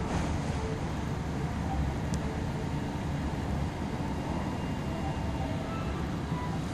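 Steady low rumble of restaurant room noise, with a faint click about two seconds in.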